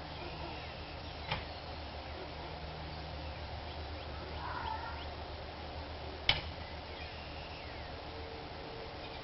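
A dog barking: two short, sharp single barks about five seconds apart, the second louder, over a steady low background hum.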